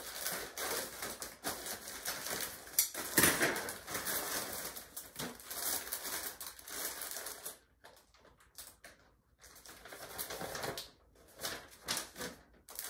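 Scissors cutting open a plastic mailer bag, then plastic packaging crinkling and rustling in irregular bursts as it is handled and torn open, the loudest rustle about three seconds in.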